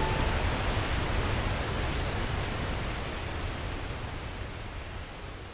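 Rushing water of Ban Gioc waterfall, a dense steady roar that fades out gradually.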